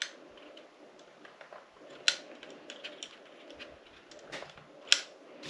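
Scattered light clicks and taps of small metal and plastic parts as an opened motorcycle instrument cluster is worked on by hand, with teaspoons levering at the gauge needles; three sharper clicks stand out, at the start, about two seconds in and near the end, over a faint steady hum.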